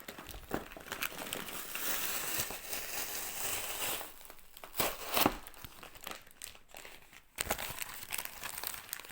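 Plastic packaging crinkling and rustling as a mailed comics parcel is unwrapped by hand, with a few sharper handling clicks about five seconds in.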